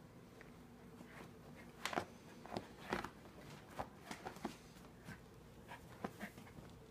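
Small dog rooting around in its fabric bed and a towel after a tennis ball: irregular scratching and rustling, with a run of short sharp scuffs from about two seconds in until about six seconds in.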